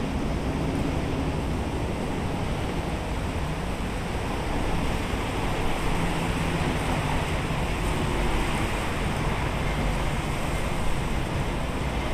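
Steady rushing outdoor background noise with a low rumble and a faint low hum running under it.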